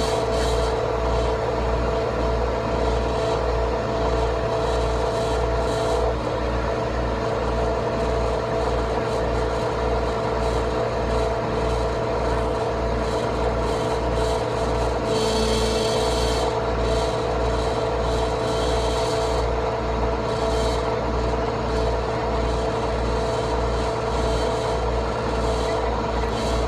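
Heavy tow truck's diesel engine running steadily, with a low throb pulsing about one and a half times a second and a steady whine over it. A brief brighter hiss comes about halfway through.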